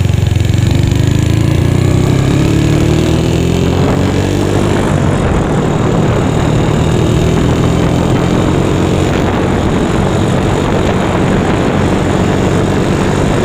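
Yamaha Mio scooter with a swapped-in Honda Megapro single-cylinder four-stroke engine, ridden on the road: the engine note rises as it accelerates over the first four seconds or so, then holds steady at cruising speed under a rushing noise of wind and road.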